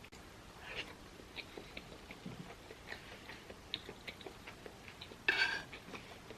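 Close-miked eating sounds: chewing with small wet clicks and smacks of the mouth, and a louder brief mouth sound about five seconds in.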